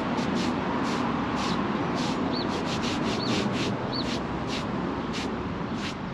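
Damp sponge rubbed over a freshly placed concrete curb patch to smooth it: quick, uneven scratchy strokes, roughly three a second. Three brief high chirps come near the middle.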